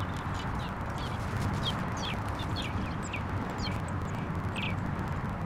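Outdoor backyard ambience: a steady low background noise with small birds chirping, a dozen or so short, quick falling chirps scattered through.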